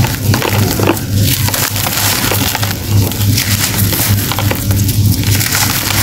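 Hands crushing and crumbling blocks of compressed sand, a dense gritty crunching and crackling as the blocks break apart and loose grains run through the fingers. A steady low hum runs underneath.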